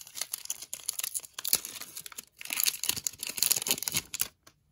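A foil hockey card pack wrapper being torn open and crinkled by hand: a dense crackling rustle that grows loudest in the second half and stops abruptly near the end.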